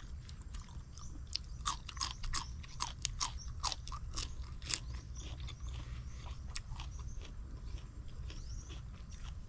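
Close-up chewing and crunching of spicy salmon salad: a quick run of crisp crunches in the first half, thinning out to fewer, softer ones later, over a steady low hum.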